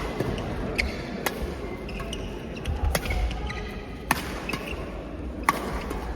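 Sharp, irregular hits during rally play in a doubles match, spaced roughly a second or more apart, over a low steady hall rumble, with a few short high squeaks.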